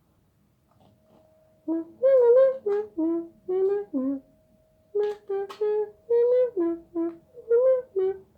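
A child humming a short tune, about a dozen separate notes, some wavering slightly in pitch, starting a little under two seconds in.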